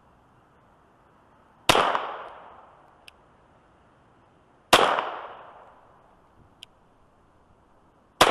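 Three single shots from a Glock 44 .22 LR pistol firing CCI Blazer 38-grain lead round nose rounds, spaced about three seconds apart, each a sharp crack followed by a fading echo of about a second; the third comes at the very end.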